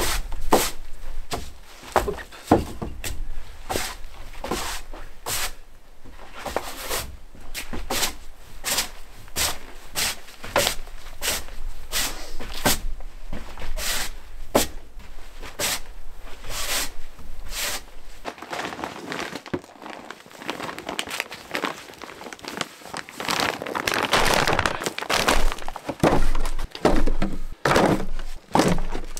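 Snow shovel scraping across wooden porch boards and flinging snow, in repeated strokes about once a second. About two-thirds of the way through this gives way to closer, louder thuds and rustling of things being handled.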